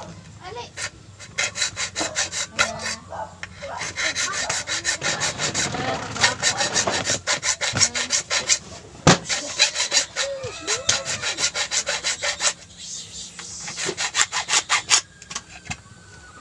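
Hacksaw cutting through a flattened PVC pipe in fast back-and-forth strokes, in several runs broken by short pauses. The sawing stops about fifteen seconds in.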